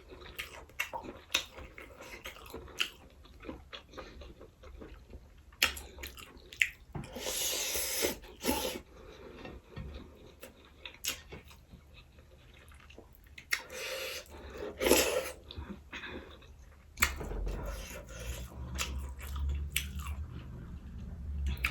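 A person chewing a mouthful of fried rice, with sausage and mushroom in it, close to the microphone, with many small wet mouth clicks. Two longer noisy bursts stand out, about a third of the way in and again a little past halfway.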